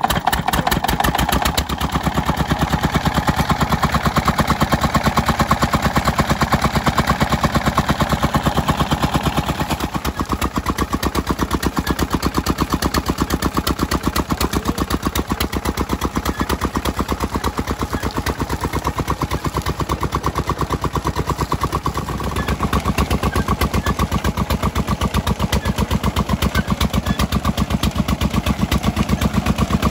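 Single-cylinder Petter-type diesel stationary engine catching after hand-cranking and running with a fast, even thudding beat as it drives a belt-driven sugarcane crusher. The level dips briefly about two-thirds of the way through, then comes back.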